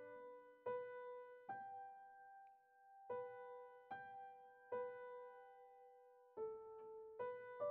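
Soft, slow keyboard music: single notes or chords struck about once every second, each left to ring and fade.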